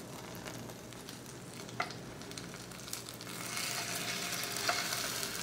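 Birria taco frying in oil in a pan: a steady sizzle that grows louder about halfway through as the taco is folded over with a spatula and tongs. A couple of light utensil clicks on the pan.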